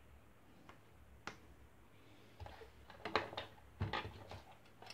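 Faint clicks and light rattling of small things handled on a table: the smart band set down and an orange plastic precision-tool case picked up. One sharp click about a second in, then a run of short clicks and rattles in the second half.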